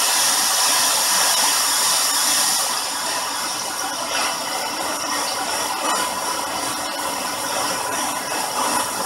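Digital noise generator circuit board putting out a steady white-noise rushing hiss through a small speaker at full volume, strongest in the treble. About three seconds in it drops a little in level and turns duller, with small wobbles as the board is handled. The noise changes only slightly, because the ground-plane PCB is much more immune to circuit bending than the breadboard version.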